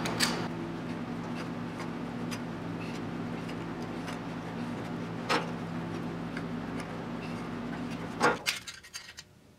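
Hand-lever sheet-metal shrinker clicking a few times as its jaws bite and shrink a steel flange. Underneath is a steady machine hum that cuts off suddenly with a louder clunk near the end.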